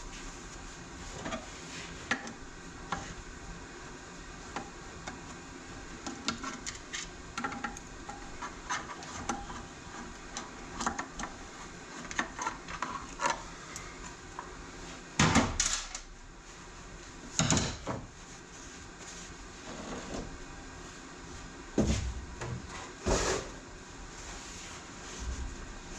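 Parts and hand tools being handled during a TH350 transmission teardown: scattered light metal clinks and knocks, with a few louder thumps about halfway through and near the end.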